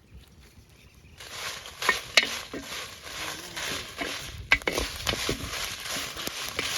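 Dried red chillies being roasted and stirred in a clay pot, starting about a second in: a steady frying sizzle with the ladle scraping and a few sharp knocks against the pot.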